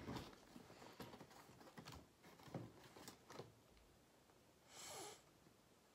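Faint handling sounds: small clicks and rustles of a cardboard toy box being lifted and opened. About five seconds in there is a short, soft hiss.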